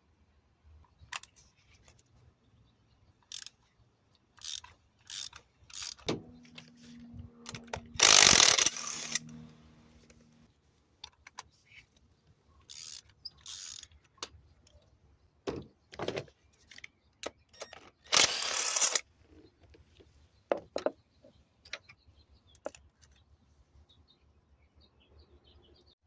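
Hand tools working on a car engine's spark plug wells: a socket ratchet clicking in short runs among scattered metal clicks and knocks. There are two louder stretches of rapid ratcheting, about a third and about two thirds of the way through, and a brief low steady hum near the first.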